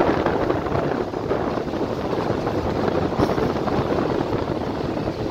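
A passenger train running: a steady rumble of wheels and carriage, with some wind on the microphone.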